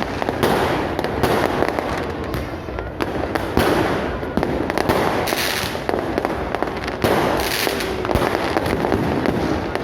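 Aerial fireworks going off in a dense, continuous barrage: many overlapping bangs and crackles, with no pause.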